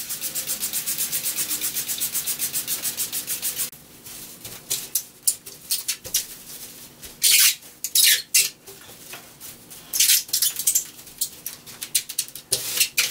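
A water spray bottle misting the bubble side of the bubble wrap in a quick, even run of spritzes, about seven or eight a second, stopping after nearly four seconds. Then plastic bubble wrap rustles and crinkles as hands press and smooth the wet sheet onto the window glass, with several louder crinkles.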